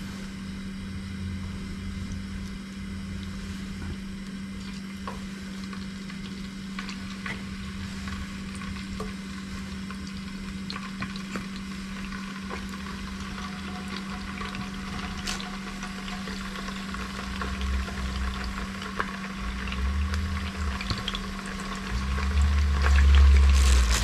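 Tofu frying in hot oil: a steady sizzle with fine crackles that grows busier in the last several seconds, over a steady low hum. A louder low rumble comes in near the end.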